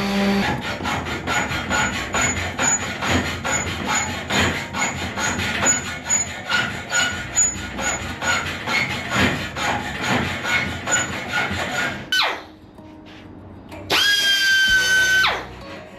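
Steady, rhythmic back-and-forth strokes of a hand saw or file, about two to three a second, with squeaks. Near the end a power tool runs briefly and winds down in a falling whine.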